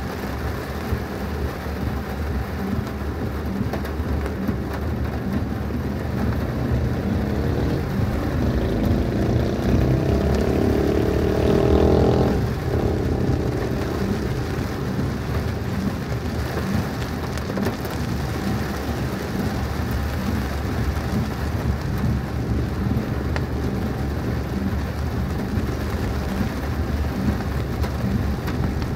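Heavy tropical downpour drumming steadily on a car during a thunderstorm, with a deep rumble underneath. For a few seconds past the middle, a vehicle engine rises in pitch and grows louder, then cuts off abruptly.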